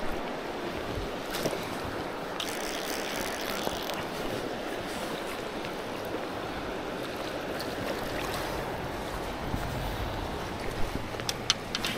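Shallow river current rippling and rushing over rocks, a steady hiss of flowing water. A low wind rumble on the microphone comes in during the second half, and a few light clicks sound near the end.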